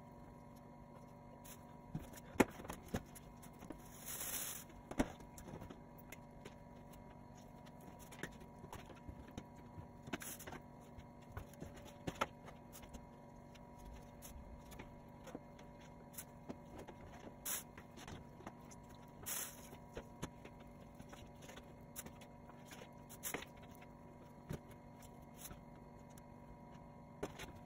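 Knife cutting raw chicken breasts on a plastic cutting board: scattered light taps and clicks, with a few short hissing rustles and a faint steady hum underneath.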